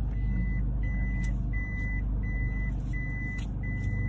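A car's warning beeper sounding a steady single high tone, about one and a half beeps a second, over the low hum of the engine and road heard inside the cabin.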